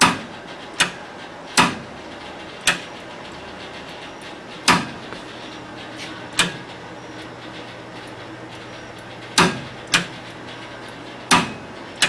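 Contactors in a 1980 Comuta-Car electric car's controller clacking as the accelerator pedal is worked: about nine sharp clacks at uneven intervals, with a faint low hum in the second half.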